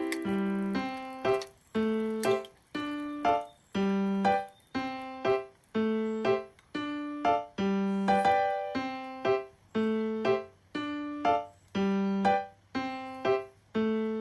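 Background music: a piano playing a steady, rhythmic pattern of repeated chords and single notes.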